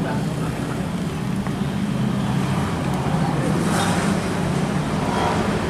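A steady low engine hum runs on without a break.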